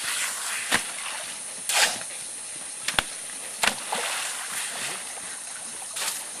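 Water splashing and sloshing in a shallow sandy creek as a shovel digs and scrapes through wet sand, in irregular bursts with a few sharp knocks; the biggest splash comes about two seconds in.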